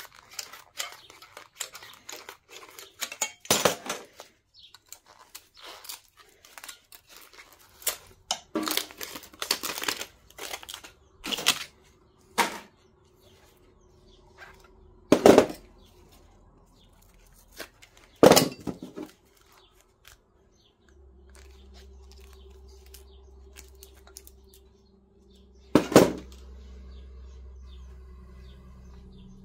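Thin steel transformer laminations being worked loose with pliers and dropped onto a pile of scrap metal: scattered clinks and clatters, with some rustling and tearing of the insulation paper around the coil.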